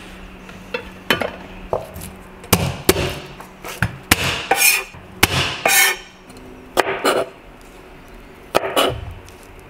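Chef's knife chopping onion on a plastic cutting board: irregular knocks of the blade on the board, with a couple of longer scrapes about halfway through as the blade slides across the board.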